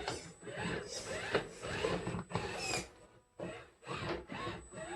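Small electric RC rock crawler's motor and gearbox whining in uneven bursts as it is throttled up a climb, with a short pause about three seconds in.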